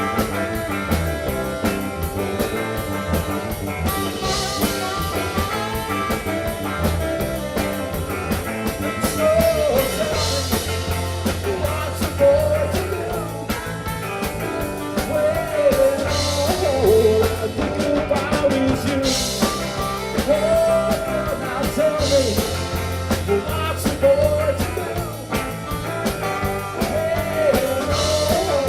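Live blues-rock band playing an instrumental passage: drum kit with a cymbal crash every few seconds, steady bass, and from about nine seconds in a bending lead melody line over the top.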